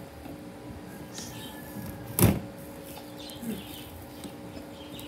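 Manual stainless-steel meat slicer worked by hand, its lever blade pushed down through a block of frozen pork, with one sharp metallic clack about two seconds in.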